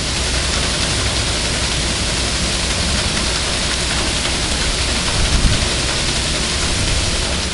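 Water pouring from a trough onto a large wooden overshot waterwheel and splashing down through its buckets: a steady rushing splash.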